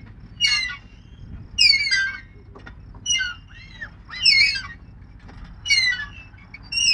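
Swing chains and hangers squealing in rhythm with the swing, one high gliding squeak on each stroke, about six in a row roughly a second apart. The squeal is the sign of the chains straining under the rider.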